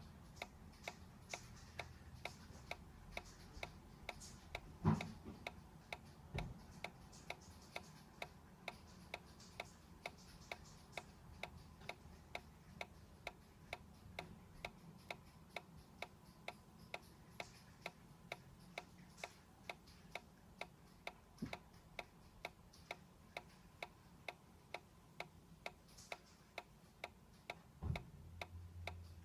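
Solar-powered dancing cactus toy ticking steadily as it sways, its magnet-and-coil drive clicking a little under twice a second. A louder knock about five seconds in and another near the end.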